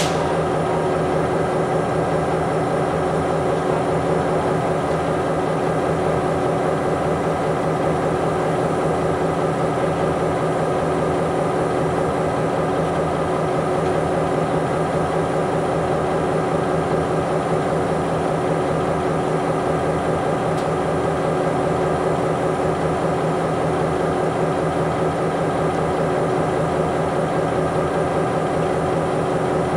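EMD GP38-2 diesel locomotive idling steadily, its two-stroke diesel engine running at an even, unchanging pitch.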